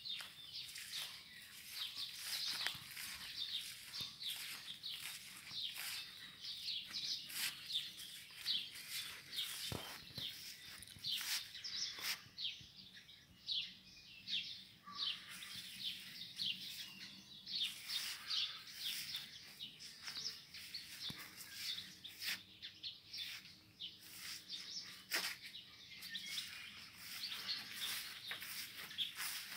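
Songbirds chirping and singing, a dense, continuous run of short high chirps from several birds, with a few sharp clicks between them.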